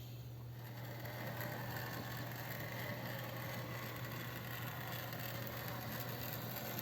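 OO gauge model train running along the track: a steady motor whir and wheel noise that grows louder about a second in, over a constant low hum.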